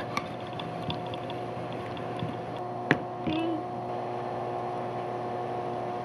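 A steady mechanical hum of several even tones, with a few sharp knocks and clicks from a knife cutting fish steaks on a wooden board and the pieces being handled on a plate. The loudest knock comes about three seconds in.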